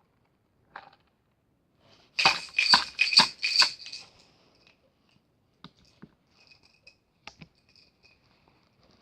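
A quick run of four or five loud rattling clicks with a faint ringing edge, about two seconds in, followed by scattered faint ticks.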